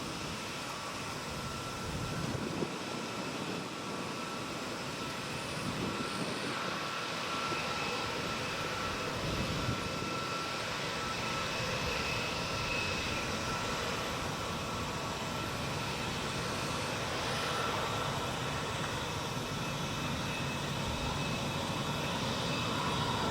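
Jet airliner's engines running at takeoff power: a steady, even noise with a high whining tone, growing slowly louder.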